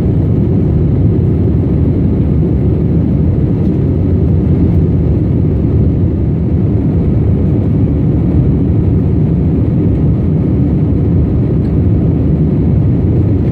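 Steady low roar of a jet airliner's engines and rushing air, heard from inside the passenger cabin in flight.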